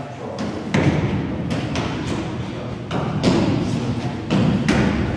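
Gloved punches landing on focus mitts, a series of sharp thuds in quick pairs like one-two combinations, about every second and a half, each with a short echo.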